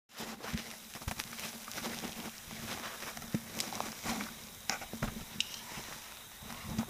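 Soft rustling and scattered light taps and clicks as a cat plays with a foxtail grass stalk among leaves, over a faint steady low hum.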